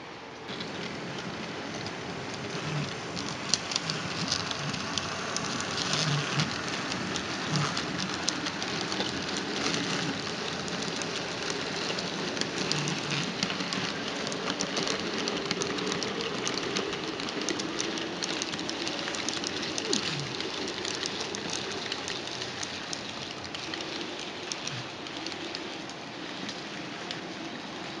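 HO-scale model track-cleaning train running on the layout's track: a steady, dense rattle of small clicks from the wheels over the rails, with the cleaning pads and rollers rubbing. It starts abruptly and eases off a little near the end.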